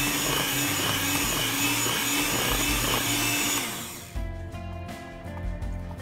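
Electric hand mixer whirring as its beaters churn thick cake batter, its motor winding down in pitch and stopping about three and a half seconds in. Background music carries on after it stops.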